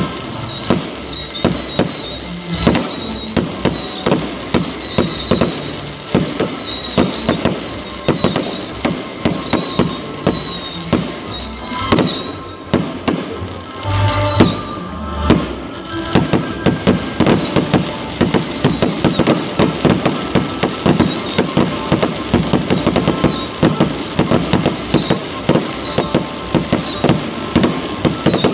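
Fireworks going off in a rapid, continuous run of bangs and crackles, with a short dip about twelve seconds in, a deeper boom just after, and then a denser, faster barrage.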